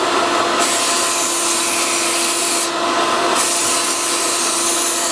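Hose-fed spray gun hissing as it sprays a white-tinted water-based finish, in two passes of about two seconds each with a short break between them. A steady whine from the air supply runs underneath throughout.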